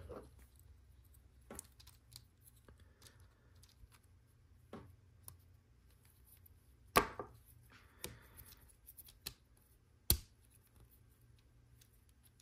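Plastic LEGO Technic parts being handled and pressed together: scattered faint clicks and rustles, with two sharp snaps about seven seconds in and again about three seconds later.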